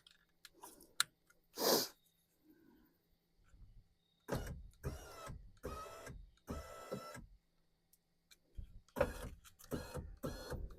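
A 2022 Mitsubishi Outlander's front door power window motor is run in a series of short bursts, moving the replacement glass while its mounting bolts are still loose. A few light clicks come first, before the first run.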